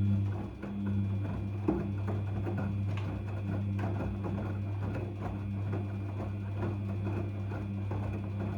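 Daewoo DWD-FT1013 washing machine running a cotton 40°C wash: the motor turning the drum gives a steady hum with a pulsing tone over it, and many small irregular clicks and knocks.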